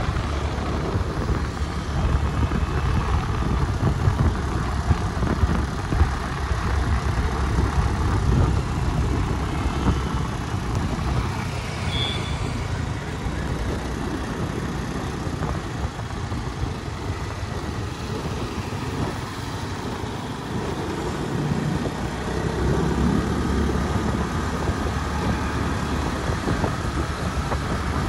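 City road traffic heard from a moving car: a steady rumble of engines and tyres on the road, with a brief high-pitched tone about halfway through.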